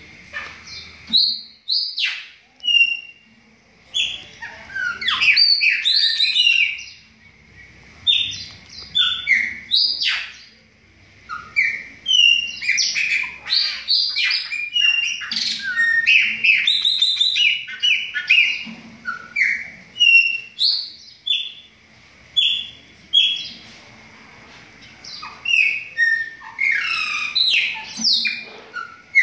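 Caged chopi blackbirds (pássaro-preto) singing: phrases of quick, varied whistled and chirping notes sliding up and down, broken by short pauses.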